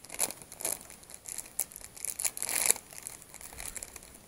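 Plastic crinkling and rustling in the hands as a soft plastic fishing lure is swapped on the hook: irregular short crackles, loudest a little past the middle.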